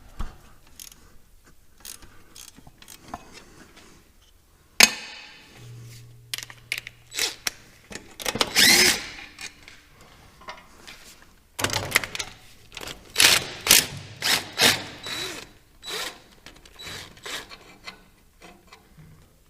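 Wrench and metal hand-tool work on a tractor's fittings: irregular clicks, scrapes and clanks, with one sharp metallic knock about five seconds in and busier clattering in the middle.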